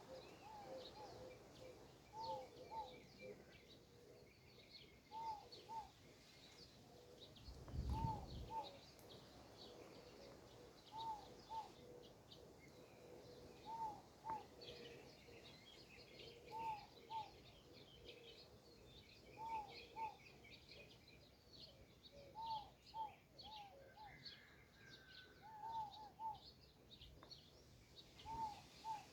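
Faint birdsong: one bird repeats a short call, often in pairs, every second or two, over a scatter of higher chirps from other birds. There is a single low thump about eight seconds in.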